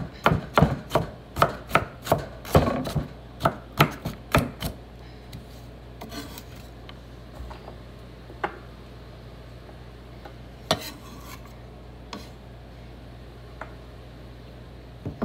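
Knife chopping carrots on a wooden cutting board: a quick run of sharp knocks, about three a second, that stops about four and a half seconds in, followed by a few scattered single knocks.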